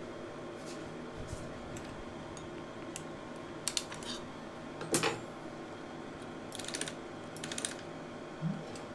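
Light clicks and small metallic taps of tweezers and a flat screwdriver working film into the threading path of a Silma 250s Super 8 projector, with the sharpest click about halfway and two short rattling runs soon after.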